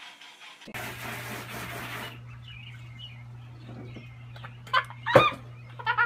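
Ducklings peeping: a run of short, high calls that bend in pitch, the loudest coming about five and six seconds in.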